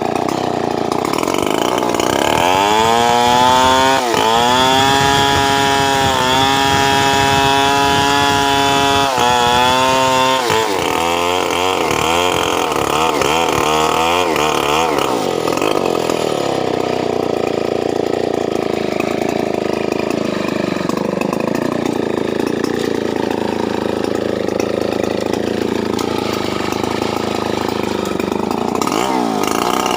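Stihl 070 two-stroke chainsaw revving up to a high, steady full-throttle pitch, which wavers and dips as the engine is loaded. It then runs lower and rougher for a stretch before revving up again near the end.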